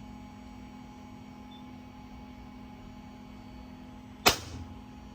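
Steady electrical hum, then about four seconds in the replacement 4/2 air solenoid valve shifts with a single sharp click and a brief rush of air.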